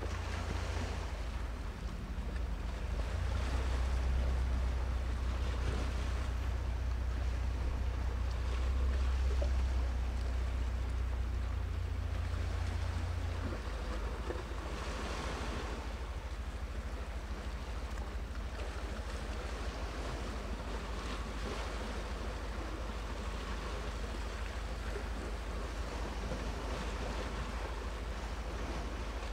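Small waves washing against the shore, swelling and falling away every few seconds, over a low wind rumble on the microphone that is heavier in the first half and eases about halfway through.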